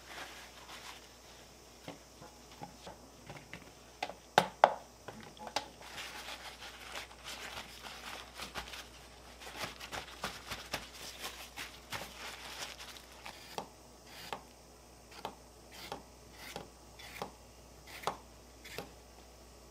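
Paper towel rustling and crinkling with a few light taps as okra pods are patted dry, then a kitchen knife knocking on a cutting board in regular strokes, a little under two a second, as the stiff caps are shaved off the okra.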